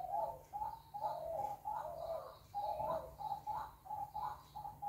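A bird calling in the background: a run of short, repeated pitched calls, several a second.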